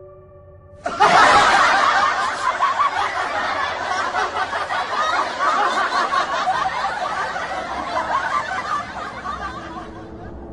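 Many people laughing together, starting suddenly and loudly about a second in and tapering off near the end, like an added laugh track.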